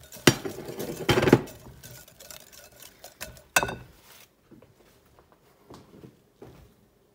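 Metal wire whisk clinking against a glass mixing bowl as it beats a runny egg-and-sugar mixture: a few sharp clinks in the first second and a half, one more about three and a half seconds in, then only faint taps.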